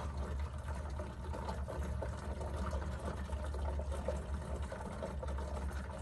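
Cooling unit of a 2020 Dometic RV absorption refrigerator gurgling: faint, irregular liquid bubbling over a steady low hum. The unit has a problem and is to be replaced.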